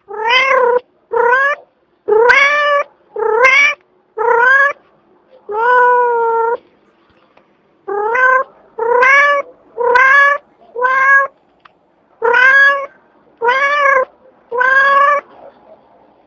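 A domestic cat meowing over and over: about thirteen loud, drawn-out calls roughly a second apart, with a short break around the middle.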